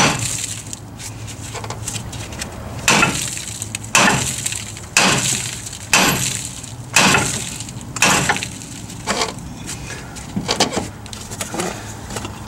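A hammer beating on a Fox-body Mustang's front steering spindle: about ten metal-on-metal blows, roughly one a second, each with a short ring, the heaviest in the middle and lighter ones near the end. The blows are meant to shock the lower ball joint's tapered stud loose from the spindle.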